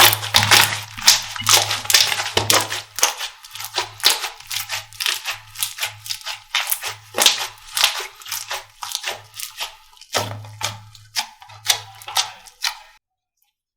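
Slime being squeezed and pressed by hand, a dense run of crackling, popping clicks that stops near the end.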